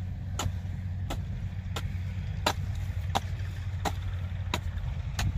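Hand hoe chopping into dry field soil in a steady rhythm, eight strikes about two-thirds of a second apart, over a steady low rumble.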